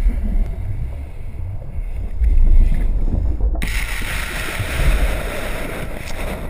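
Cartoon sound effects of an airliner going down into the sea: a heavy low rumble, then a loud rushing noise that comes in suddenly about three and a half seconds in.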